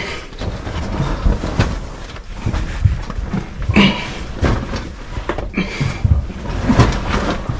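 Irregular scraping, rustling and knocks close to the microphone from someone crawling through a tight cave passage: body, clothing and gear rubbing and bumping on rock and mud.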